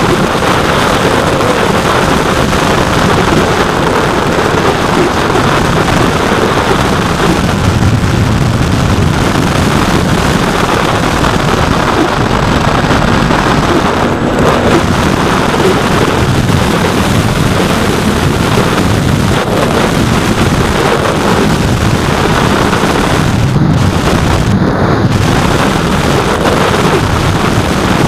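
Loud, continuous rush of wind over the microphone of a keychain camera mounted on a radio-controlled plane in flight, with the plane's electric motor and propeller mixed into the noise.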